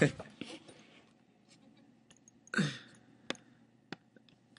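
A man's voice gives one short falling murmur about halfway through, with a few sharp, faint clicks in the second half.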